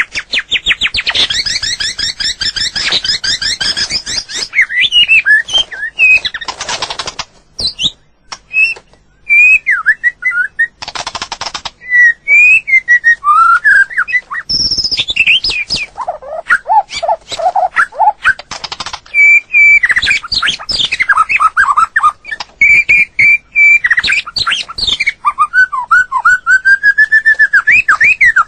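White-rumped shama singing: a fast chattering run of notes at the start, then varied clear whistled phrases that glide up and down, broken by a few short harsh notes.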